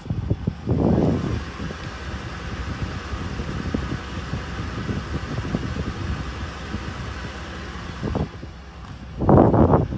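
Wind buffeting and handling noise on a handheld phone microphone, a low irregular rumble with two louder gusts, about a second in and again near the end.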